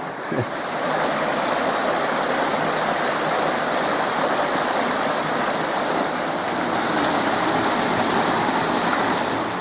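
Creek water rushing over rocks: a loud, steady rush of falling and tumbling water.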